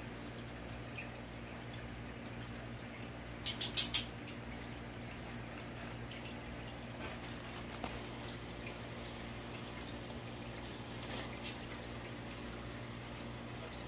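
Steady low hum with a faint trickle of water from an aquarium's filter and pump running. About three and a half seconds in comes a quick run of four sharp clicks.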